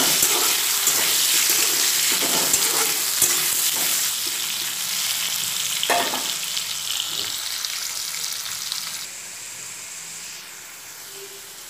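Cubed potatoes sizzling as they fry in mustard oil in a metal kadai, with a couple of light clicks. The sizzle fades gradually and drops suddenly quieter about nine seconds in.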